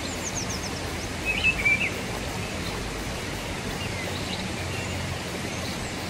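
Steady outdoor rushing noise, with a songbird's short high chirps at the start and a louder burst of chirps about a second and a half in.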